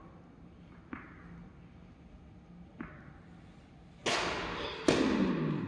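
Tennis ball bounced twice lightly on the court, then struck hard by rackets twice, about a second apart, each hit a sharp pop with a ringing tail.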